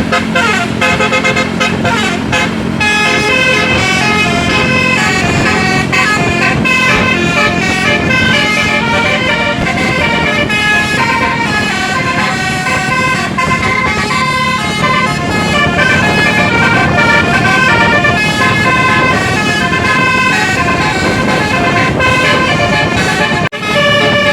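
Bus 'telolet basuri' multi-tone musical air horn playing a melody, its notes changing in quick steps over the bus's steady running hum, breaking off for a moment near the end.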